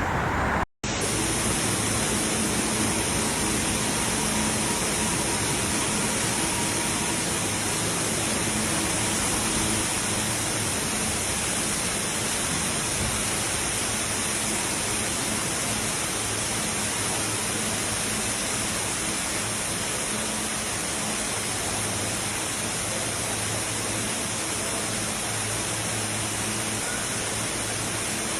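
Steady, even rushing of storm water. The noise breaks off to silence for an instant under a second in, then runs on unbroken.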